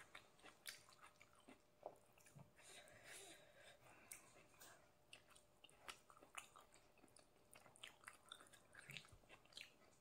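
Faint close-up chewing of spicy stir-fried young jackfruit: soft, irregular wet mouth clicks and smacks.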